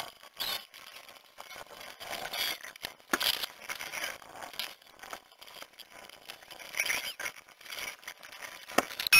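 Irregular short clatters, clicks and scrapes of hand tools and parts being handled in a car's engine bay.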